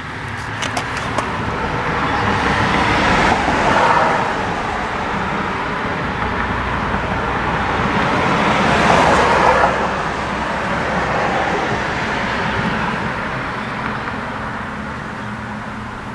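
Road traffic passing by: two vehicles go past one after the other, their tyre-and-engine rush swelling to a peak about four and nine seconds in, then slowly fading.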